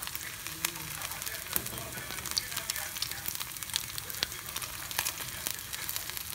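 Beef and potatoes frying in hot oil in a pan: a steady sizzle with frequent sharp crackles and pops of spitting oil.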